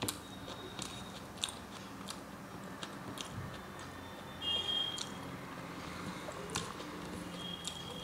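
Close-miked eating sounds: someone chewing rice and omelette with the mouth closed, with wet mouth clicks and smacks and the soft squish of fingers mixing rice on a plate. A short high steady tone sounds about four and a half seconds in and again near the end.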